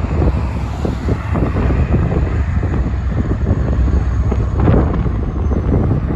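Strong wind buffeting the microphone, a dense low rumble, with scattered knocks from the freight train's tank cars standing or creeping on the siding.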